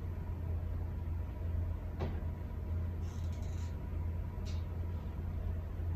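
Steady low hum, with a few faint short clicks and rustles of handling.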